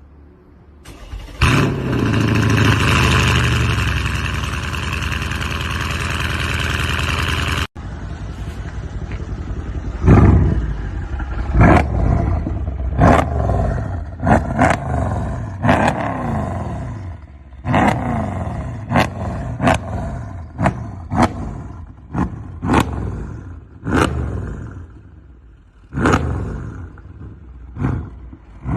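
Mercedes-AMG CLS 63's V8 starting with a loud flare and settling into a fast idle that slowly drops. After a break, a long series of sharp throttle blips follows, about one a second, each rev falling straight back.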